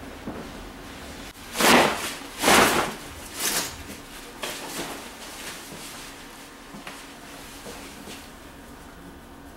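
A vinyl barber cape being shaken and snapped out: two loud flaps about a second apart, a softer one after, then a few faint rustles as it settles.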